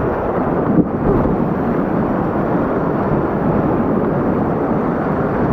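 Whitewater of a river wave rushing steadily, with one brief knock about a second in.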